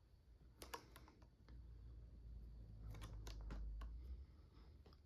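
Faint clicks and scuffs from hand-fitting slip-on compression arrow vanes, each vane gripped and pulled down over the arrow shaft. A low rumble runs through the middle.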